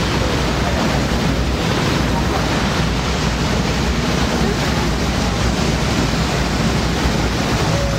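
Wind buffeting the microphone and sea water rushing past the hull aboard a patrol vessel under way, steady throughout, with a low, even hum underneath.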